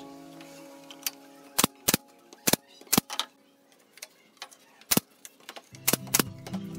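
Sharp, separate clicks and knocks, about a dozen, from hand work fitting small pallet-wood strips onto a headboard. Acoustic guitar music comes in near the end.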